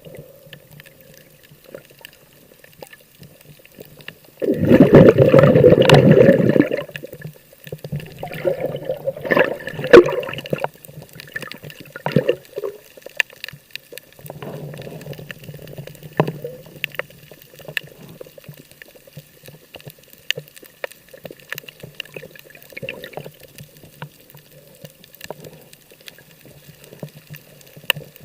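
Water sloshing and gurgling, with a loud two-second rush about four and a half seconds in, then smaller irregular surges and splashes.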